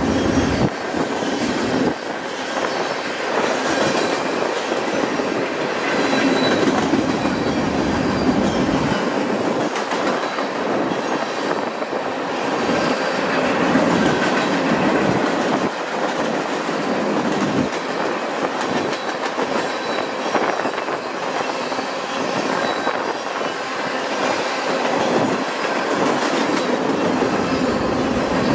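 Mixed freight train of tank cars and boxcars rolling past at close range, its steel wheels clacking steadily over the rail joints under a continuous rumble.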